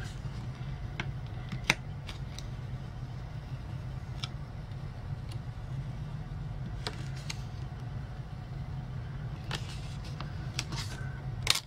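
Light clicks and soft crinkles of fingers picking at a planner sticker and peeling it back off the paper page, over a steady low hum. The sharpest click comes about two seconds in, and a few more come near the end.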